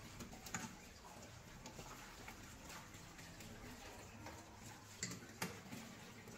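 Tap water running into a steel sink while stainless-steel bowls and a colander are washed by hand, with a few sharp metal clinks, two of them close together about five seconds in.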